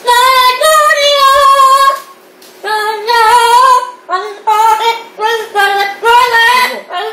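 A yellow-crowned amazon parrot singing a song with Korean words in a human-like voice: a long sung phrase, a short pause, then several shorter phrases with brief gaps.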